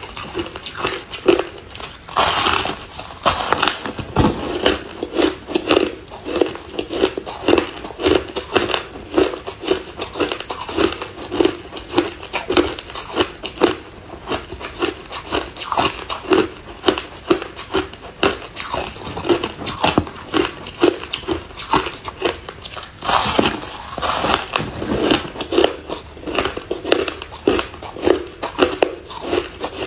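Ice being bitten and chewed: a fast, continuous run of crisp crunches, with louder bites about two seconds in and again about 23 seconds in.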